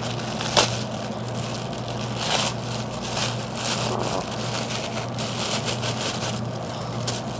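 Packaging rustling and crinkling as a parcel is handled and opened, with a few sharp crackles, over a steady low hum.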